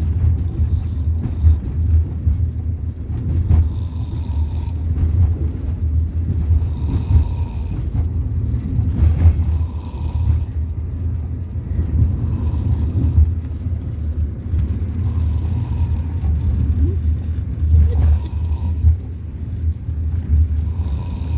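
A child snoring while asleep sitting up, one snoring breath about every three seconds, over a steady low vehicle rumble.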